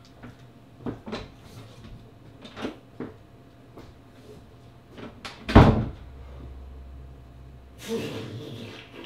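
Several light knocks, then a loud door slam a little past halfway, followed by a low hum and a short rustling noise near the end.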